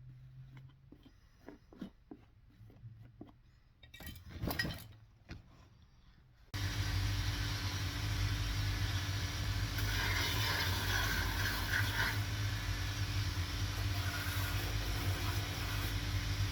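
Small clicks and handling noises of hand work on a shoe, with a brief louder rattle, then about six seconds in the electric motor of a shoe-repair workshop machine cuts in abruptly and runs steadily with a deep hum. A harsher grinding sound rises over it for a couple of seconds in the middle.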